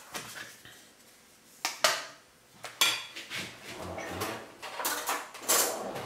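Kitchen handling: a metal spoon clinking against a foil cheese wrapper and dishes, and a plastic tub of fromage blanc being opened and set down on the countertop, heard as a string of sharp clicks and knocks with quieter rustling between them.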